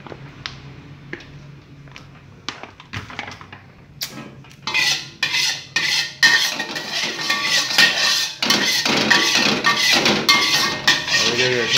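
Metal utensil clattering rapidly against dishware: a few light knocks at first, then a dense, louder run of quick strokes from about four seconds in.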